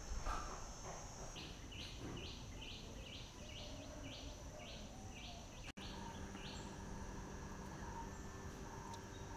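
Outdoor tropical ambience: a bird calls a run of about a dozen short, high, repeated notes, roughly three a second, over a steady high insect drone. Near two-thirds through, the sound drops out for an instant, and after it the drone is gone and only a faint low hum remains.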